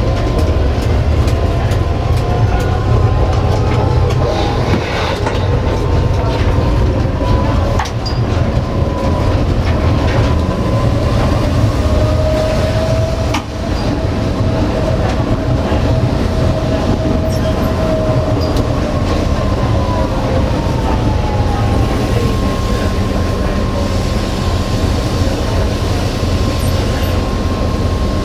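Tatra T4D tram running, heard from the driver's cab: a steady low rumble of wheels on rail, with a motor whine that glides up and back down in pitch as the tram gathers and loses speed. There are a few sharp clicks over the rails.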